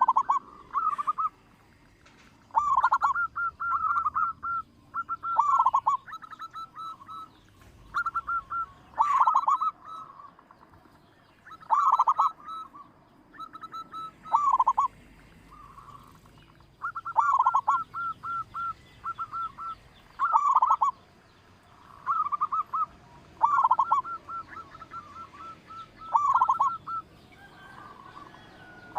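Zebra dove (perkutut, local type) singing its cooing song over and over: each phrase is a quick run of short notes followed by a few lower, drawn-out coos, repeated every couple of seconds.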